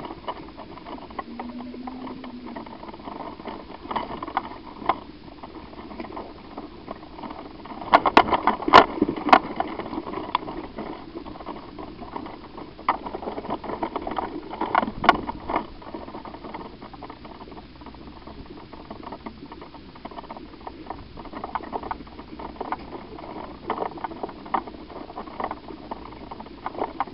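Footsteps and rustling of clothing and gear as players move on foot, irregular light patter throughout, with a quick cluster of sharp clicks and knocks about eight seconds in.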